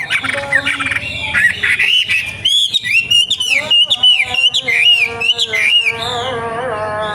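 A wambi songbird singing a fast run of loud, arched whistled notes, about two a second, strongest in the middle. A chanted call to prayer sings on underneath, plainest at the start and near the end.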